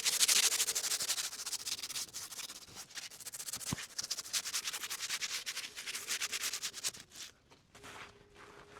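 Loose rust being sanded by hand off a steel acroprop, in rapid back-and-forth scraping strokes that stop about seven seconds in.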